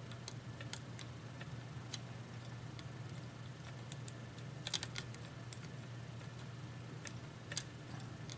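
Lock pick and tension wrench working the pins of a pin tumbler lock: scattered small metallic clicks and scrapes, with a quick cluster of clicks just before the middle. The lock is crunchy, which the picker puts down to serrated pins. A steady low hum runs underneath.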